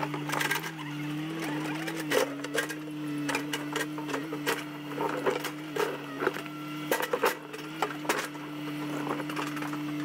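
Backhoe's diesel engine running at a steady pitch that dips and rises slightly now and then as it takes load, with irregular knocks and clatters from the digging among the boulders.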